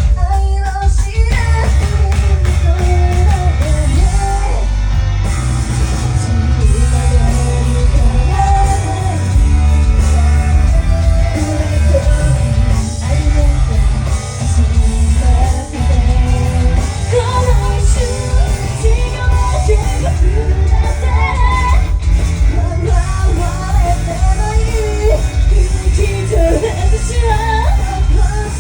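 Loud pop music with a singing voice over heavy, steady bass.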